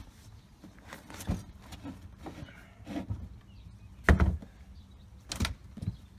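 Storage hatch lids and a hinged seat on a Walker Bay rigid inflatable boat being shut as gear is stowed: a few separate knocks and thumps, the loudest about four seconds in.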